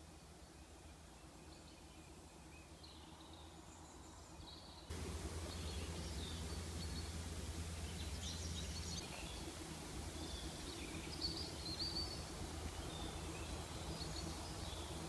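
Outdoor background ambience with small birds chirping now and then, more often in the second half. About five seconds in, the background noise jumps abruptly louder and a low steady hum comes in.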